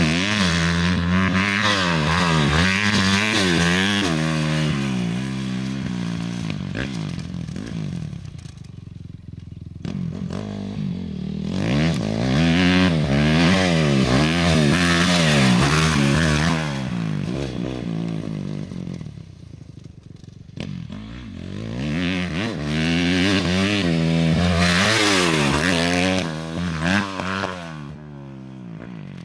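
Dirt bike engine revving hard and easing off over and over, its pitch climbing and dropping as it works through the gears. It comes in three loud stretches, with quieter dips between them, and it fades near the end.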